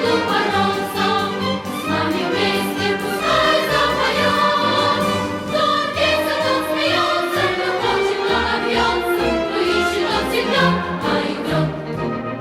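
Background music: a choir singing over orchestral accompaniment with a steady beat.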